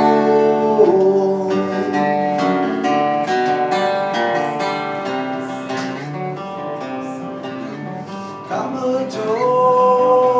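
Acoustic guitar playing an instrumental passage between sung lines of a live song. A singing voice comes back in with a long held note near the end.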